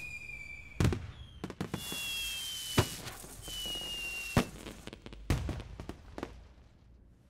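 Fireworks going off: rockets whistling with a slowly falling pitch, a series of sharp bangs and pops, and crackling that fades out near the end.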